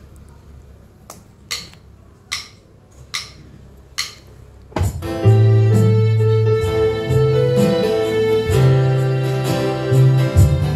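Four sharp evenly spaced clicks like a count-in, then an electronic arranger keyboard starts a song intro about five seconds in, with held bass notes, sustained chords and a steady drum beat.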